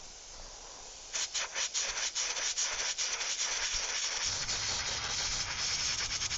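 Airbrush spraying paint: a steady hiss of air that gets louder about a second in and flutters rapidly, with a low hum joining about four seconds in.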